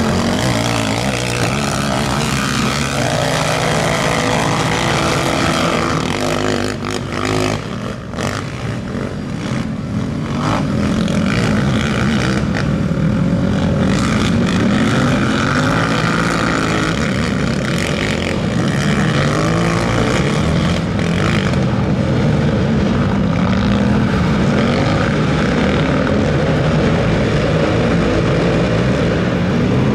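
Several over-450 cc racing quads (ATVs) at full race pace, their engines revving up and down and overlapping as they accelerate out of corners and shift. The sound dips briefly about eight seconds in.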